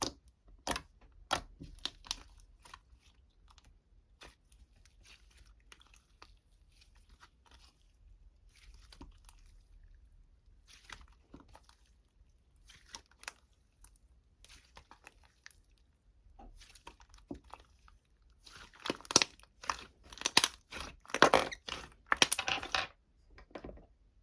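Close-up crunching and crinkling: scattered soft clicks and crackles, then a dense, louder run of crinkling about three-quarters of the way through.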